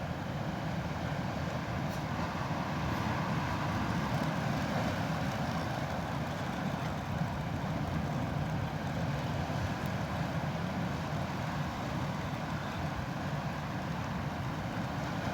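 Steady wind rumbling on the microphone, with sea surf against the jetty rocks beneath it; an unbroken noisy rumble with no distinct events.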